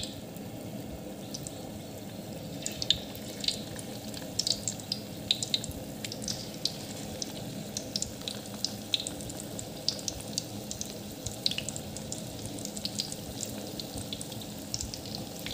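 Battered chicken drumsticks deep-frying in hot oil: a steady bubbling hiss with scattered crackles and pops.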